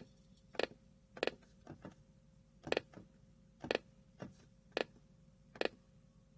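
Computer clicking: single sharp clicks at uneven spacing, about eight in all, over a faint steady hum.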